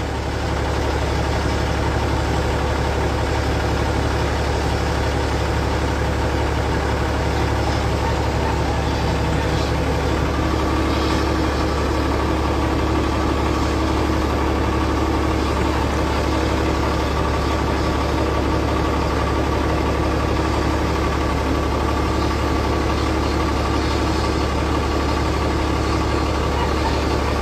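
Bell 429 GlobalRanger helicopter's twin turbine engines and rotor running on the ground before lift-off: a steady low drone with a steady whine that grows stronger about ten seconds in.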